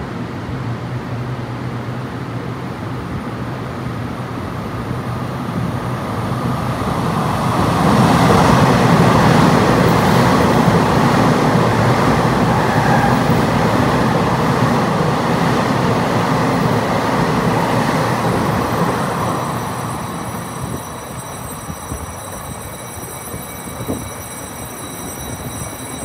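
EMU3000 new Tze-Chiang express electric train running through an underground station at speed without stopping. Its rumble swells over a few seconds, stays loud for about ten seconds as the cars go by, then fades, leaving a thin steady high whine near the end.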